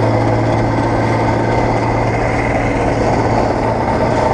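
Bizon Z040 combine harvester working in the field: its freshly rebuilt diesel engine runs steadily under load with the threshing machinery turning, a constant low hum without change in pitch.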